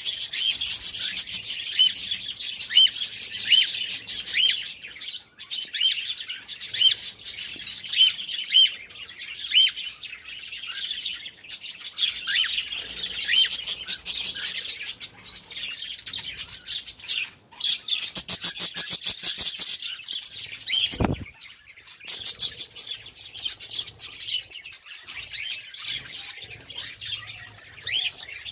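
A flock of budgerigars chattering continuously: many short rising chirps over a dense, fast warbling twitter, with a stretch of very rapid chatter a little past the middle.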